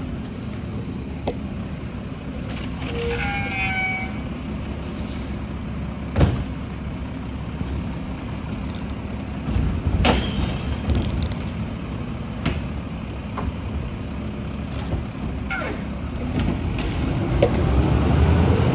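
Automated side-loader recycling truck's engine running steadily at low speed, with scattered sharp knocks and clicks. It gets louder near the end.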